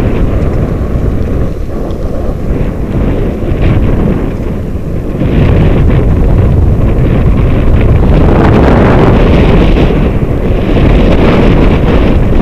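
Heavy wind buffeting the microphone of a moving dog-sled rig, a dense low rumble, with rushing and splashing as the dogs and rig run through a wet, puddled dirt track. It gets louder about five seconds in.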